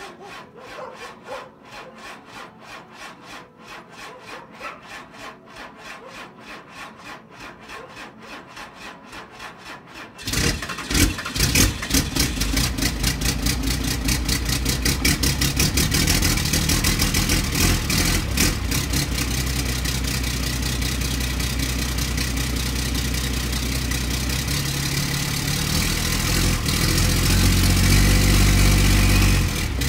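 12-valve Cummins diesel in a 1993 Dodge W250 on a cold start: the starter cranks it with an even rhythm for about ten seconds, then the engine fires and settles into a steady idle. Near the end the engine speed rises for a few seconds, then drops back.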